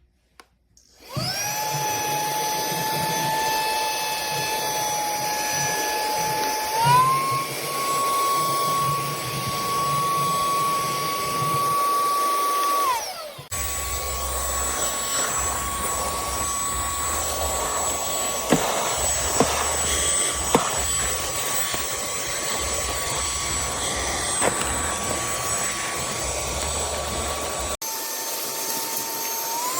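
Handheld cordless vacuum cleaner running with a high motor whine: it starts about a second in, steps up to a higher speed, then winds down and stops. It runs again at the higher pitch with a few sharp ticks, and near the end starts once more at the lower speed and steps up.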